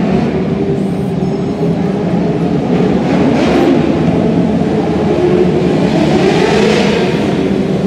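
A pack of winged micro sprint race cars running around an indoor dirt oval, a steady engine drone with revs rising and falling twice as cars come past.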